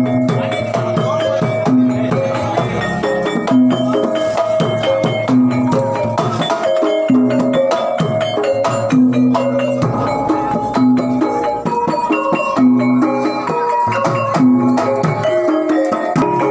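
Javanese gamelan ensemble playing: repeated ringing notes on tuned metal percussion over a steady pattern of drum strokes.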